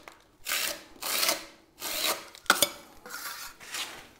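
A steel spatula scraping and smoothing wet travertine decorative plaster in about five short strokes, with a sharp tap of the blade about halfway through. The plaster is being compacted.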